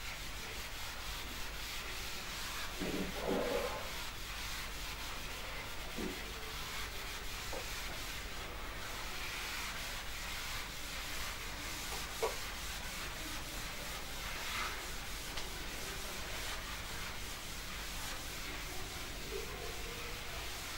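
Writing by hand: steady scratchy rubbing strokes of a pen or chalk on the writing surface, with a brief muffled knock about three seconds in and a sharp tap about twelve seconds in.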